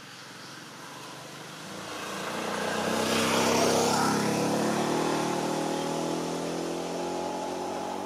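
A motor vehicle driving past: its engine hum and road noise build to a peak a few seconds in, then slowly fade.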